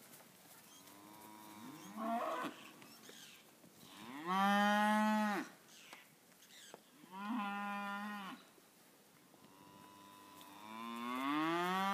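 Poll Hereford heifers mooing: four long moos a few seconds apart. The loudest comes about four seconds in, and the last one is longer, rising in pitch and still going at the end.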